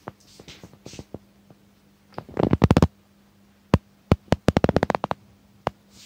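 Small handheld toy projector flashlight clicking: a fast run of sharp clicks about two seconds in, a couple of single clicks, then another fast run from about four to five seconds in.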